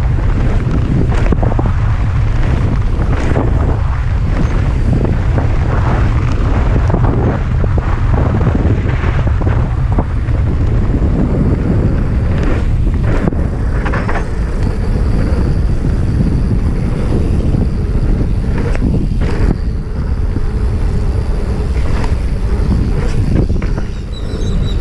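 Wind buffeting a moving camera's microphone in a steady heavy rumble, broken by frequent short knocks and rattles.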